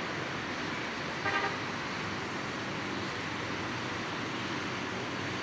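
Steady outdoor traffic noise, with one short vehicle horn toot about a second in.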